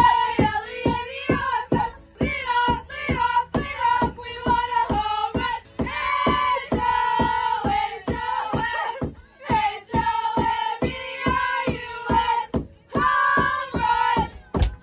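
Background music: a song with a female lead vocal over a steady beat.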